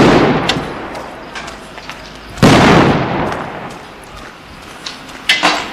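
Two loud explosive blasts about two and a half seconds apart, each echoing away over a second or so. A smaller sharp bang follows near the end.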